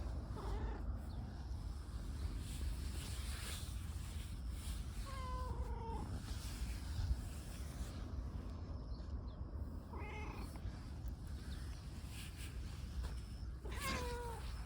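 A tortoiseshell stray cat meowing four times, short falling mews spaced a few seconds apart.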